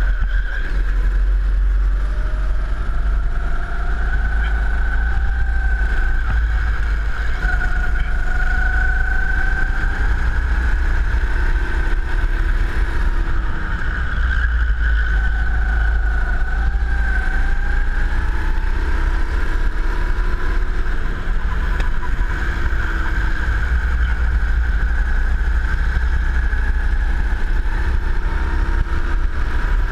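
Racing kart engine heard from onboard at full pace, its pitch rising and falling over a few seconds at a time as the throttle is opened out of corners and eased into them.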